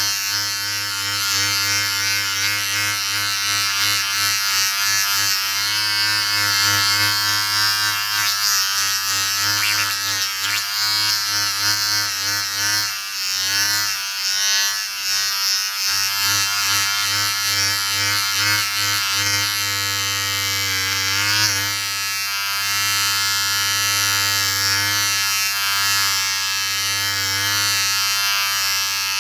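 Electric shaver buzzing steadily, its pitch wavering slightly now and then.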